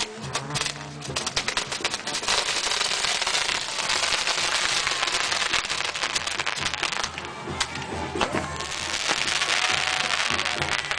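Fireworks castle burning, its spinning fountains of sparks giving a dense hiss, with rapid sharp crackles in the first couple of seconds. Music plays underneath.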